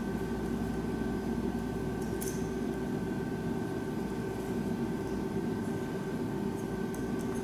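Steady electrical-sounding room hum with a few faint clicks and rustles from hands handling suture tape and a plastic anchor inserter.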